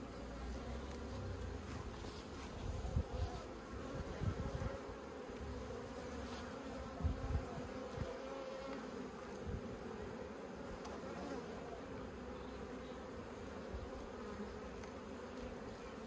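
Honeybees buzzing around an open top bar hive: the steady hum of many bees. A few soft knocks sound about three and seven seconds in.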